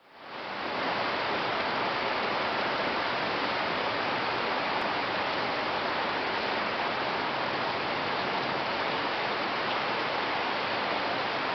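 Steady rain falling, an even hiss that fades in over the first second and then holds unchanged.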